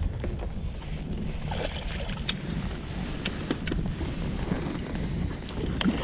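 Wind buffeting the microphone in an open boat: a steady low rumble, with a few light clicks and knocks through the middle.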